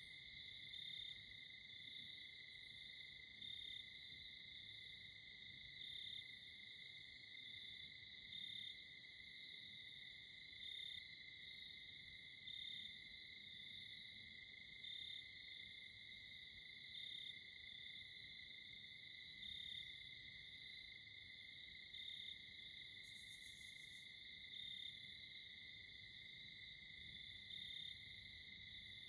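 Faint evening chorus of crickets and other insects: a steady high trill with a slightly louder chirp repeating about every two and a half seconds, and a brief higher buzz about two-thirds of the way through.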